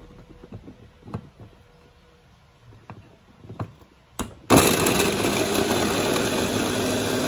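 Electric food chopper with a clear plastic bowl: a few faint plastic clicks as the top is fitted, then about four and a half seconds in the motor starts and runs steadily while its blades chop peeled garlic cloves.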